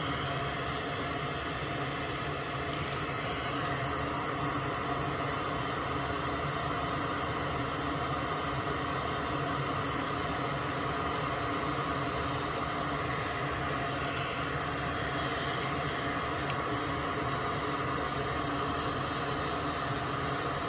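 Steady whirring hiss of a small electric fan or blower on a soldering workbench, running evenly with a constant hum under it.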